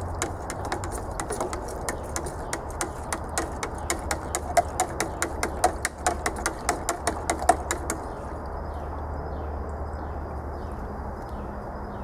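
A piece of aluminum stirring kerosene inside an upright plastic pipe, clicking against the pipe wall about three or four times a second, with a few louder knocks. The stirring stops about eight seconds in.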